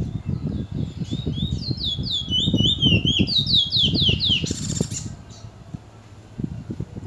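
Caged bullfinch singing a rapid run of downward-slurred whistled notes for about three and a half seconds, ending in a short rasping rattle. A low rumbling noise runs underneath.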